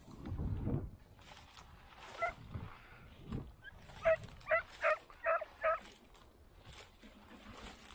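Italian scent hound (segugio) barking: a single call about two seconds in, then a quick run of five sharp barks in a little under two seconds near the middle.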